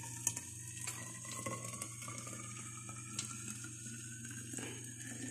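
Freshly boiled water poured in a steady stream from an aluminium kettle into a vacuum flask, the pitch of the filling rising steadily as the flask fills.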